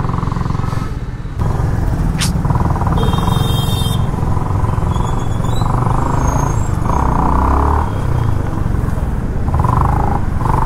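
Yamaha R15 V3 motorcycle being ridden, its engine running steadily under a dense low rumble; the sound gets louder about a second and a half in.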